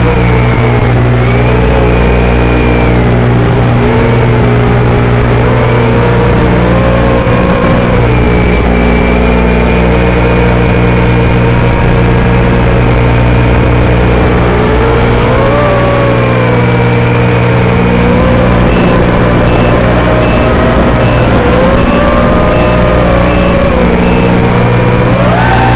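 Loud, steady buzzing hum on the audio of a Wizard X220 quadcopter's FPV video link, with a wavering tone drifting up and down over it. The noise comes from the video transmitter sending mono audio to a FatShark receiver that expects stereo.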